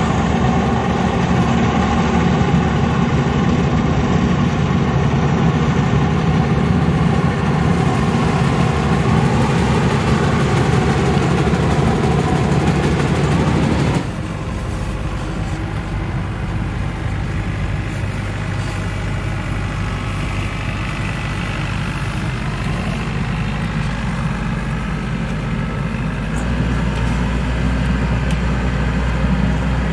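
Rice combine harvester engine and machinery running steadily. About halfway through the sound drops suddenly to a quieter, lower level, and a deeper low tone comes in near the end.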